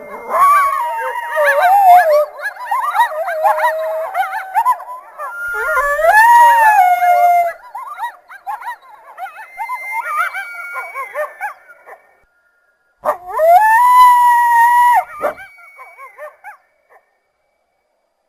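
A group of coyotes howling and yipping together in overlapping, wavering calls. After a short break, one long howl rises and holds, followed by a few short yips that die away.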